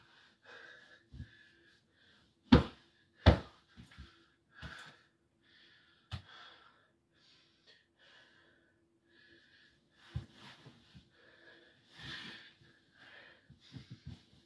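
A person breathing hard in short, quick puffs, with two louder sharp sounds about two and a half and three and a half seconds in.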